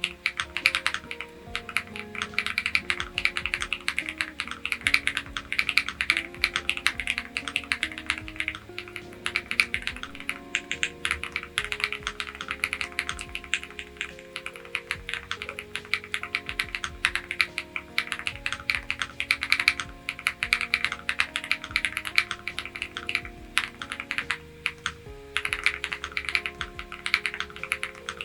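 Fast typing on a Bridge 75 mechanical keyboard: a dense run of keystroke clicks with a couple of brief pauses, over background music.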